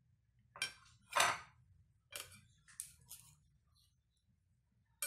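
A metal cake server scraping and clinking against ceramic plates, in several short strokes with the loudest about a second in.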